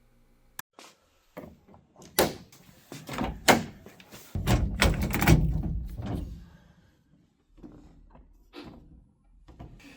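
A series of sharp clunks and knocks, like a door being handled and shut, with a louder low rumble for about two seconds in the middle.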